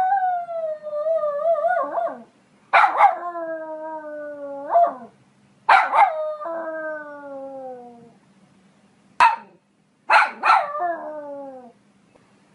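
A poodle giving four drawn-out, howling barks, each starting sharply and sliding down in pitch, with one short yap between the third and fourth.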